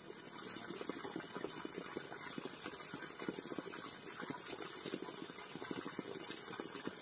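Water pouring from a bamboo spout at a spring, splashing steadily.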